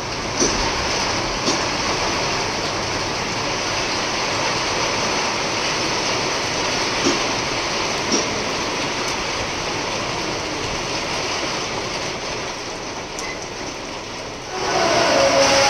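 Heavy rain pouring onto a waterlogged street, a steady dense hiss with a few sharp taps of drops landing close by. Near the end a louder noise with a steady tone cuts in.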